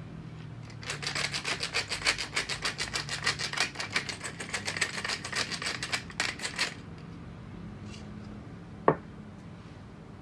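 Tall wooden pepper mill being twisted to grind peppercorns, a gritty crunching ratchet of about five strokes a second for nearly six seconds. Near the end, one sharp knock as the mill is set down on the wooden table.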